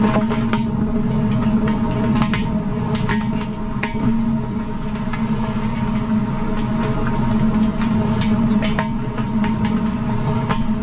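Road noise heard from inside a car tire while driving: a steady low droning hum with irregular sharp clicks and knocks throughout.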